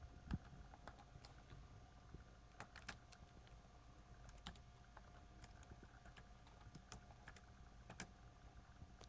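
Faint, irregular keystrokes on an IBM ThinkPad T42 laptop keyboard as a password is typed in.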